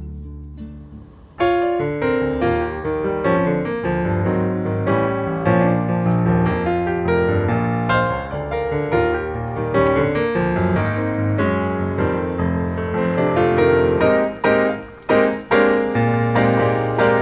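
Background music: a piano piece that begins about a second and a half in, as the tail of a guitar piece fades out.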